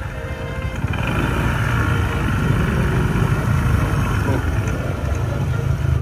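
Motorcycle engine running steadily at low speed as the bike rolls slowly along.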